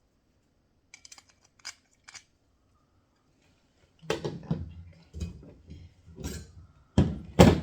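Cut steel puzzle pieces clinking lightly as they are handled, then a run of knocks and clanks as they are set down, with two loud knocks near the end.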